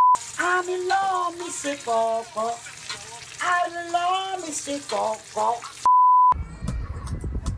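Two censor bleeps, each a steady 1 kHz tone about half a second long, one right at the start and one about six seconds in, with a person's voice between them.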